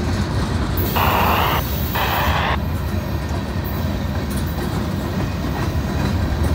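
Freight train of boxcars rolling past: a steady low rumble of steel wheels on rail, with two short bursts of higher scraping noise about one and two seconds in.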